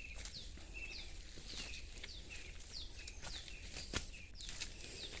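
A forest bird calling over and over: a quick high falling note, then a short level note, repeated every half second or so. There is a single sharp click about four seconds in.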